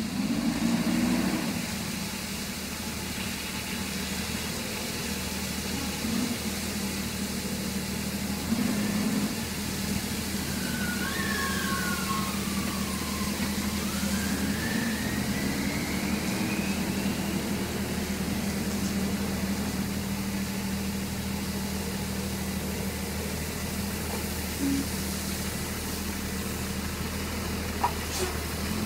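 Mack garbage truck's engine running steadily at low speed as it rolls through a wheel-wash system, over a constant hiss of water jets spraying its wheels and undercarriage.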